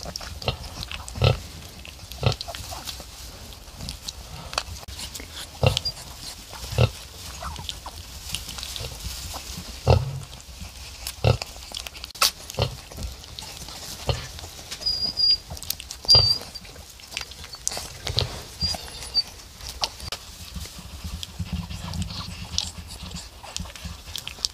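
Sow and newborn piglets grunting in short, irregular grunts as the piglets nurse, with a few brief high squeaks in the middle and straw rustling.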